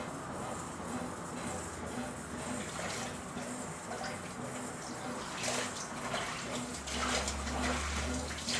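Brastemp Ative BWG11 top-loading washing machine agitating a load of sheets in water: steady sloshing of water in the drum, with a low motor hum that gets stronger about seven seconds in.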